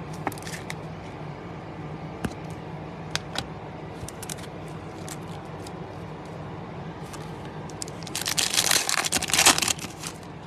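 Scattered light clicks of trading cards and a clear plastic card holder being handled over a steady low hum. About eight seconds in comes a loud crackling burst lasting under two seconds: the foil wrapper of a Topps Chrome baseball card pack being torn open.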